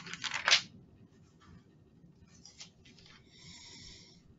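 Faint rustling and handling noises: a louder rustle in the first half-second, a few soft clicks, then a steady scratchy rustle near the end.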